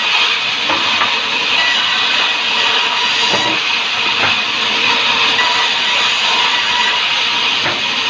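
Sawmill band saw running steadily as it cuts sengon (light albizia) logs into boards: a continuous whine and hiss, with a few light knocks of timber being handled.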